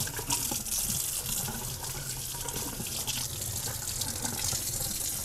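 Water running steadily from a kitchen sink's pull-down faucet sprayer, splashing over plant leaves in the sink.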